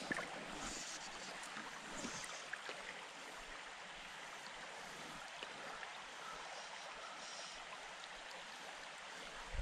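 Shallow, rocky creek flowing: a steady, fairly quiet rush of water over stones.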